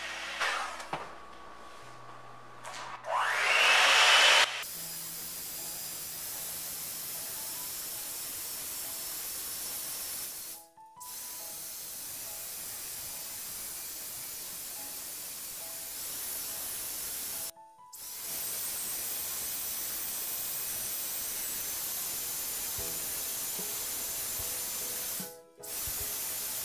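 Electric hand mixer whisking egg whites into Italian meringue as hot sugar syrup is poured in, a steady motor noise under quiet background music. There is a louder rush about three seconds in, and the sound cuts out abruptly three times.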